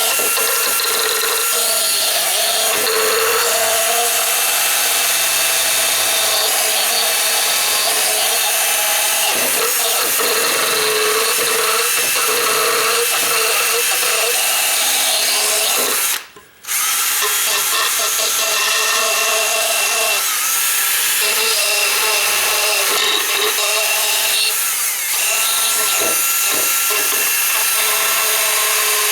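Handheld power tool running steadily at high speed as it files a part down, stopping briefly about halfway through and then starting again.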